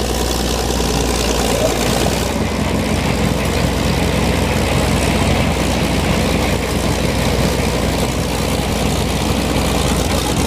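Heavy engine of a vintage rotary auger snow blower truck idling steadily.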